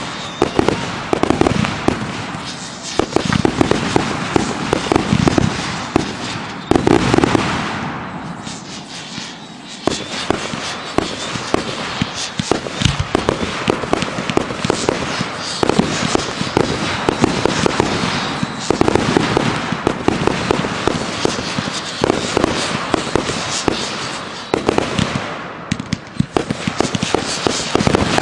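Consumer firework cakes firing in rapid succession: a dense run of launch thumps and aerial shell bursts, easing off for a moment about eight seconds in before picking up again.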